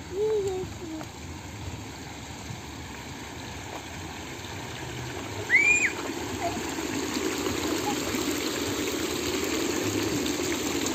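Running water with a steady rushing sound that grows louder through the second half. A brief voice at the very start and a short high-pitched squeal about halfway through, which is the loudest sound.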